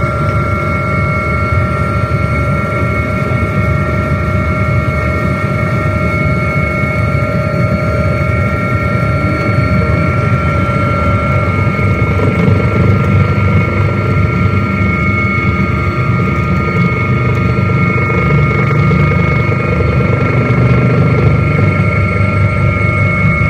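Helicopter heard from on board: a steady turbine and gearbox whine over the low rumble of the rotor, growing slightly louder about halfway through.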